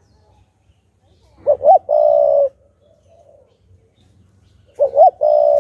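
Spotted dove cooing: two song phrases about three seconds apart, each two short rising-and-falling notes followed by a longer held coo.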